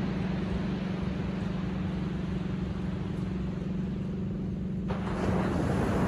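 Ocean surf washing on a sandy beach over a steady low hum; the rush of the surf grows suddenly louder about five seconds in as a wave breaks.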